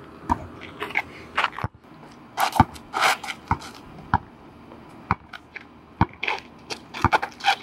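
Basketball bouncing hard on an asphalt court as a player dribbles, about one sharp bounce a second, with sneakers scuffing on the asphalt between bounces.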